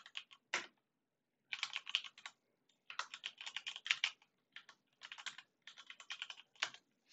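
Typing on a computer keyboard: several quick runs of keystrokes separated by short pauses.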